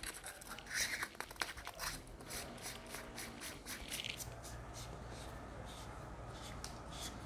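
Faint handling sounds of a metal flashlight being put together: small clicks and scrapes as the battery goes into the body and the tail cap is screwed onto its threads.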